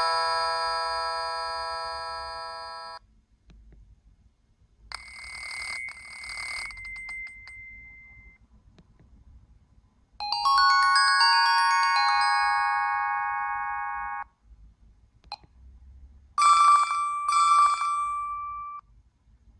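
A run of short bell-style ringtones from the O2 X2i flip phone's speaker. A chime dies away over the first three seconds, then a rattly bell with one lingering high tone. After that comes a cluster of hollow bell notes held for about four seconds, and near the end a light bell rings twice.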